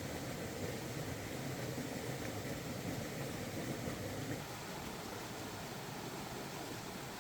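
Steady rushing of a mountain stream's flowing water, dropping slightly in level a little after halfway.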